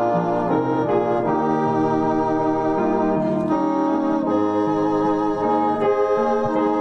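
A slow hymn played on a digital horn, an electronic wind instrument, with sustained organ-like chords. The held notes change every half second to a second at a steady level.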